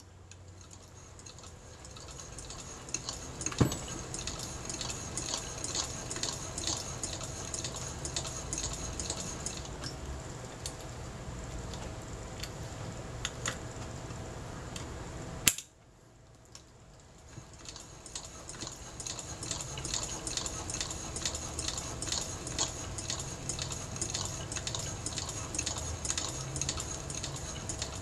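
Elna Junior toy sewing machine, hand-cranked, stitching through fabric: its needle mechanism clicks in a quick, even rhythm. About halfway through the run stops with a sharp click, then starts again slowly and picks up speed.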